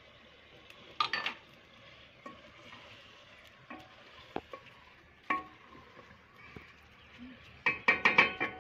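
Wooden spoon stirring chicken curry in an aluminium pot, knocking against the pot's sides every second or so, with a quick run of louder, ringing knocks near the end. A faint sizzle of the masala cooking sits underneath.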